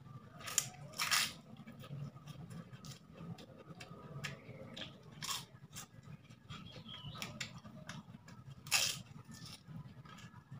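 Close-up eating by hand: chewing and crunching of crunchy food with rice, in short sharp crunches. The loudest crunches come about half a second in, about a second in, around five seconds in and near nine seconds.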